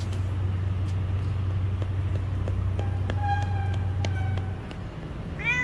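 Tabby cat purring close to the microphone, a steady low rumble that stops about four and a half seconds in. A faint steady high tone sounds briefly from about three seconds in, and the cat gives a short meow at the very end.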